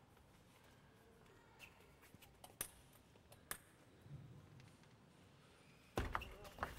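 Table tennis ball clicking sharply a couple of times in a quiet hall, then a sudden louder thump and a quick run of ball clicks near the end as the next rally gets under way.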